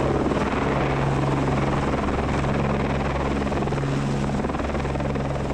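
Eurocopter AS350 AStar helicopter running steadily at flying power as it lifts off carrying a snowmobile on a long line, its turbine and rotors giving a constant low hum.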